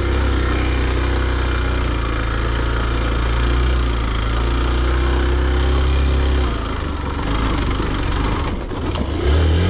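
Motorcycle engine running while riding. The engine note eases off about six and a half seconds in and picks up again near the end.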